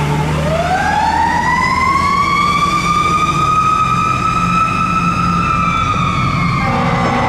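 Fire engine siren sounding one long wail. It rises over about a second and a half, holds high, and begins to fall near the end, over the steady low rumble of the truck's engine.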